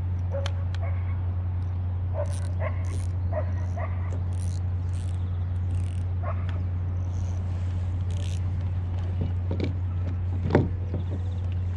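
Dogs barking and yipping in short, scattered calls over a steady low hum, with one sharp knock near the end.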